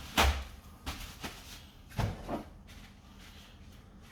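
A handful of short knocks and clunks of containers and utensils handled on a kitchen counter, the loudest just after the start, the last about two and a half seconds in.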